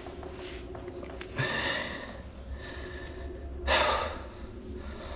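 A person breathing heavily: a breath about a second and a half in, a softer one after it, and a louder, sharp intake of breath near four seconds in.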